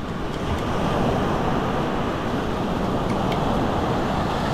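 Steady wind noise buffeting the microphone, with beach surf in the background.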